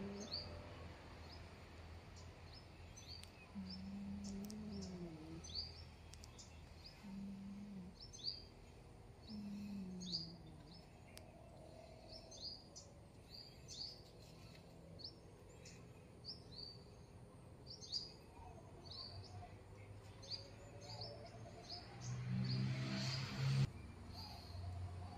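A small bird chirping over and over, short high chirps about one or two a second. A few low, drawn-out sounds come in between, and the loudest of them falls near the end.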